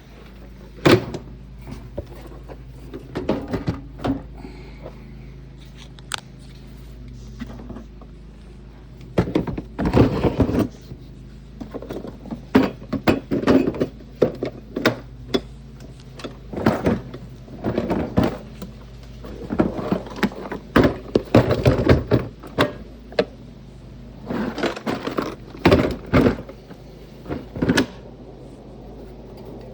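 Hard plastic Milwaukee Packout organizer bins and toolboxes being put back and stacked: irregular knocks and clunks, a few early on, then in busy clusters from about a third of the way in.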